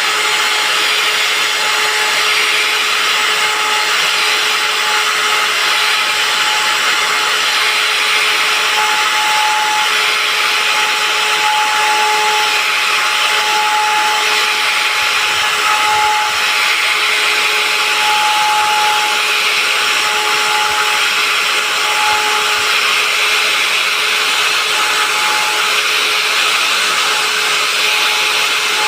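Handheld CNC router running without a break, a steady high whine over hiss.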